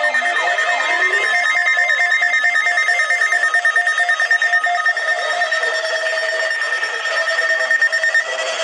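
Several weather-alert radio alarms sounding at once: overlapping steady and pulsing electronic beeps, with a lower warbling tone sweeping up and down about once a second. The loudest steady tone cuts off near the end.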